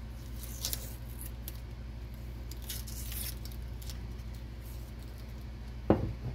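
Painter's masking tape being peeled and crumpled off a painted axe head, faint crinkling rustles, then the steel axe head set down on a wooden workbench with a sharp knock near the end.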